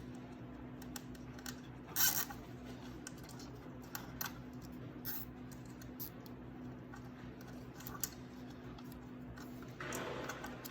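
Light plastic clicks and rattles of a zip tie being hooked into a slot and worked around wiring, with a louder short clatter about two seconds in and a brief rustle near the end, over a faint steady hum.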